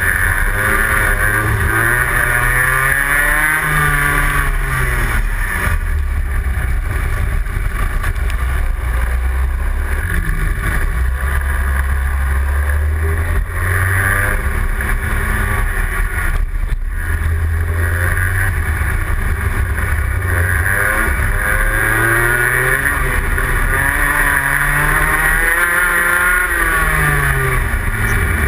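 Rotax Senior Max 125 cc two-stroke kart engine heard from onboard at racing speed, its pitch rising and falling several times as it accelerates out of corners and slows into them.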